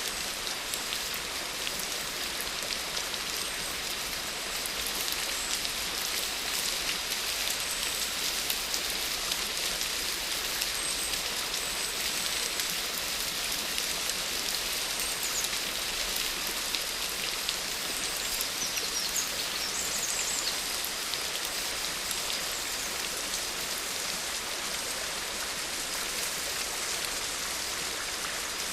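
Steady rain falling, a continuous hiss with the fine ticks of many individual drops.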